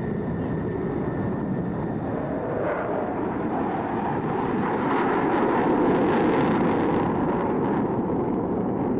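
Jet aircraft engine noise, a steady roar that swells to its loudest about six seconds in and then eases off.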